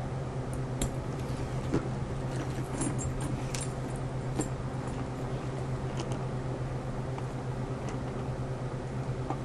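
Metal hardware on a leather bag strap clinking and jangling lightly as the strap is handled, in scattered clicks mostly during the first half, over a steady low hum.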